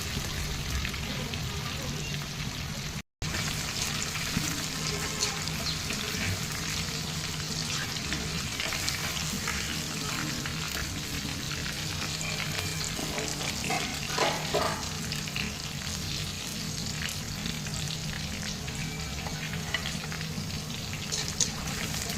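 Chicken pieces frying in hot oil, sizzling steadily with many small crackles and pops. The sound cuts out completely for a moment about three seconds in.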